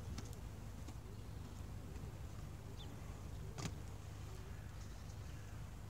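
Inline skate wheels rolling on a concrete skatepark bowl, with a sharp clack about three and a half seconds in as the skates reach the top of the wall, over a steady low background rumble.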